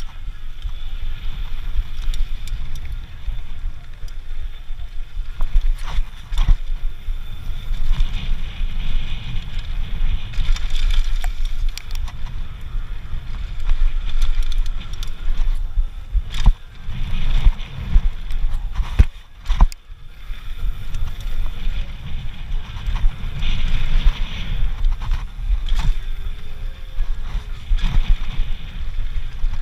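Mountain bike running fast down a dirt trail: wind buffeting the microphone over the rumble of tyres on packed dirt and gravel, with frequent rattles and knocks from the bike over bumps. The noise drops out briefly about nineteen seconds in.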